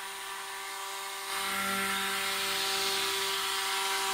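Electric stick blender running submerged in a tub of cold-process soap batter, a steady motor whine that gets louder about a second in.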